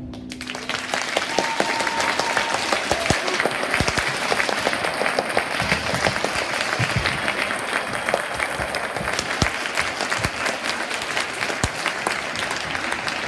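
Audience applause that swells in the first second as the concert band's final chord dies away, then carries on steadily as many hands clapping.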